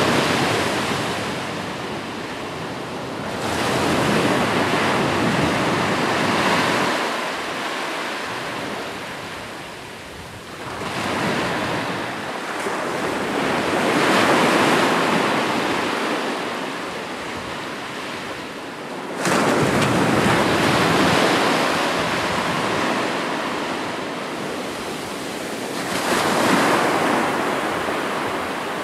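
Ocean surf: waves breaking and washing up the shore in slow surges every several seconds, one breaking abruptly about two-thirds of the way through.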